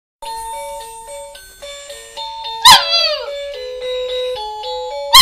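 Husky puppy, about six weeks old, howling along to a simple electronic tune: one loud howl sliding down in pitch about two and a half seconds in, and another starting at the very end.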